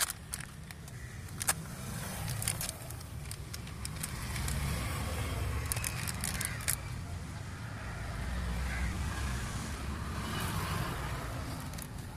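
Plastic packets of a brake wheel-cylinder repair kit crinkling as they are handled and opened, with small clicks as the rubber cups and metal pistons are tipped out. A steady low vehicle rumble runs underneath.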